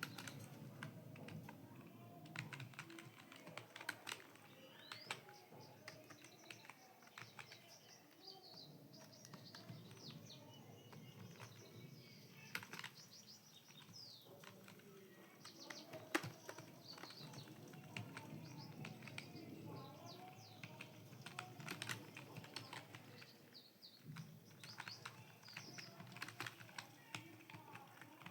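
Computer keyboard being typed on in a fast, irregular stream of faint key clicks during a timed typing test.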